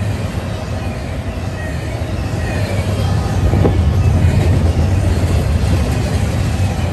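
Double-stack intermodal freight train's container well cars rolling past close by: a steady low rumble of steel wheels on rail, with faint high-pitched wheel squeal.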